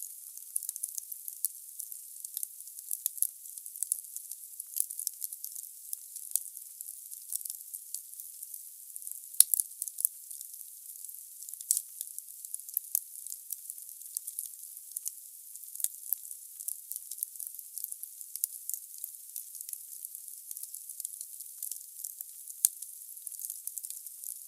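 Wood fire burning in a fireplace: a steady hiss with dense crackling and snapping from the burning logs, and a sharper pop about nine seconds in and another near the end.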